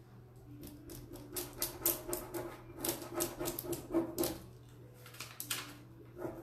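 Scratchy strokes of a burnishing tool rubbing a decor transfer sheet down onto paper, in quick runs with a short pause in the middle.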